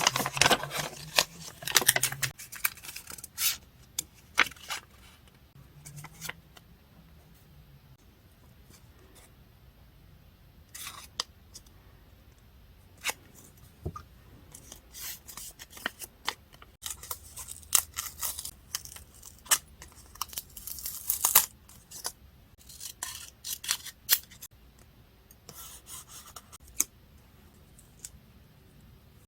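Paper-crafting sounds at close range: snips and tearing of paper in scattered bursts, with quiet gaps between them.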